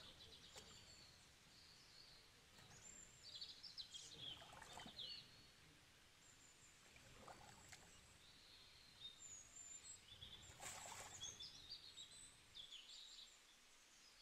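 Faint birds chirping and calling on and off, with a few soft splashy thumps.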